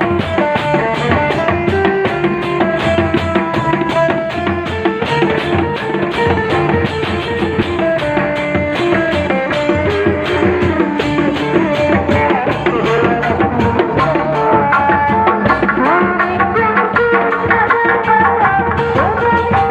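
Loud Sundanese street-procession music: a steady pattern of drums and gong struck by hand and stick, under a wavering, gliding melody line.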